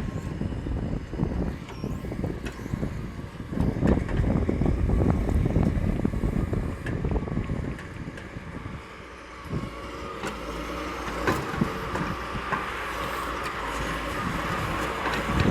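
Vehicle rumble with wind buffeting the microphone, and a faint whine from about ten seconds in.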